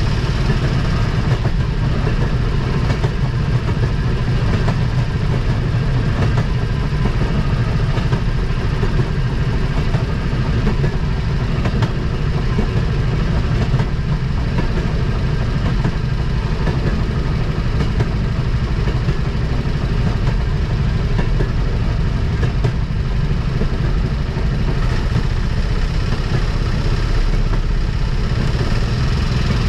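Rail motorcar (speeder) running steadily down the track, its small engine and rolling noise even throughout.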